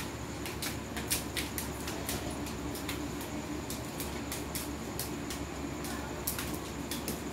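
Dog claws clicking irregularly on a ceramic tile floor, a few sharp ticks a second, as two Siberian huskies shuffle their feet. A steady low hum runs underneath.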